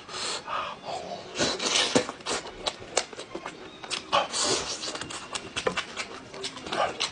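Close-up eating sounds: biting into and chewing a braised chicken drumstick, with wet smacking and irregular sharp mouth clicks.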